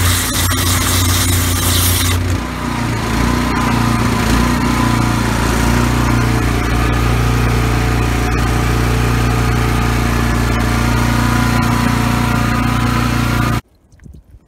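Engine of a hot-water pressure washer thawing unit running steadily, with the hiss of the high-pressure hot-water spray for about the first two seconds. The spray hiss then stops, the engine runs on alone, and the sound cuts off abruptly near the end.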